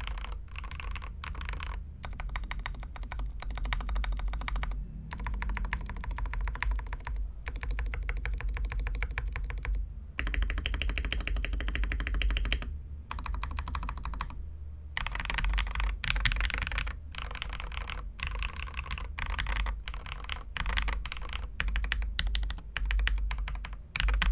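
Typing on a Tecware Veil 87 TKL mechanical keyboard with lubed JWK Lagoon tactile switches, Akko ASA-profile keycaps and a tempest tape mod: rapid keystrokes in runs of a few seconds with short pauses between.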